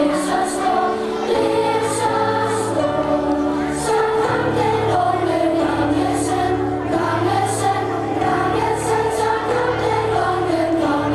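A song with a group of voices singing a melody over a steady bass accompaniment, playing for a stage dance.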